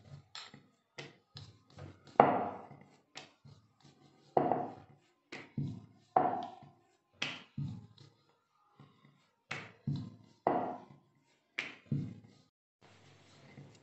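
Wooden rolling pin rolling and knocking on a marble board while puri dough is rolled out: a run of irregular taps and thuds, a few of them louder knocks with a short ring.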